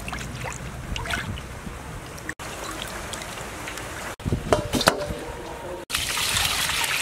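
Water splashing and sloshing in a stainless-steel basin as a whole fish is scrubbed clean by hand, with a few sharp knocks and splashes near the middle. About a second before the end, a steady rush of water poured from a container over the fish in the basin.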